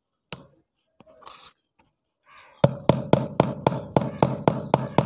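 Claw hammer striking a nail into the plastic top of a motorcycle battery to punch a hole: one knock, then about a second and a half later a run of about ten quick, even strikes, roughly four a second.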